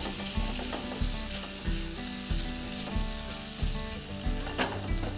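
Chicken, onion, celery and chillies sizzling in a nonstick wok while a spatula stirs them around the pan.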